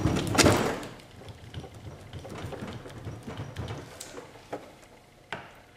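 Screwdriver prying and scraping at a stuck gear shift lever on a Yamaha YZ250F engine, metal on metal. A loud scraping burst in the first second, then quieter scraping and a few sharp clicks near the end.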